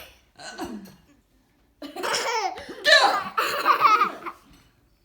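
A young child laughing hard: a long burst of belly laughter from about two seconds in, after a couple of short sounds at the start.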